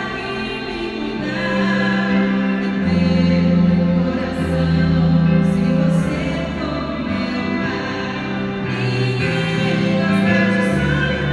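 Live sacred song: a woman singing into a microphone, accompanied by a bowed cello holding long low notes and a keyboard.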